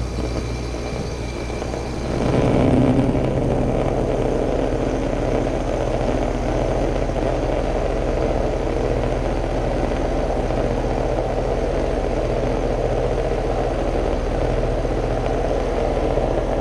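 Outdoor air-conditioning condenser unit running with a steady low hum. About two seconds in, the rushing air of its condenser fan starts up and holds steady. With the fan running, the unit's clicking has stopped.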